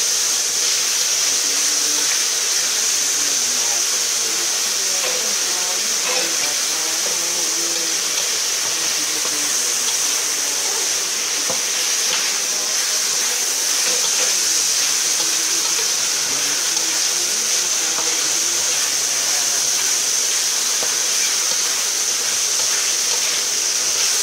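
Meat sizzling in a hot wok as it is stir-fried: a steady hiss, with faint clicks and scrapes from the metal spatula against the pan.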